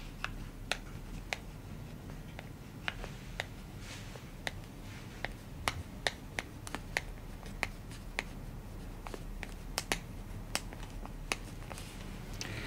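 Pencil writing on a clapperboard slate: irregular sharp little clicks and ticks as the point strikes and lifts from the board, over a low steady hum.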